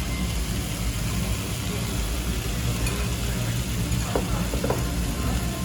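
Monja ingredients (chopped cabbage and seafood) sizzling on a hot table griddle as metal spatulas stir and scrape them, over a steady low rumble.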